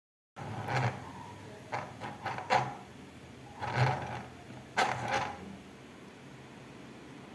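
Irregular clicks, knocks and scrapes of a small plastic mini sewing machine being handled and adjusted, over a faint steady low hum.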